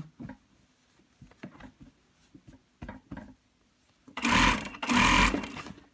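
Industrial sewing machine stitching the placket of a knit piqué polo shirt: a few faint clicks at first, then the machine runs in two short, loud bursts about four seconds in.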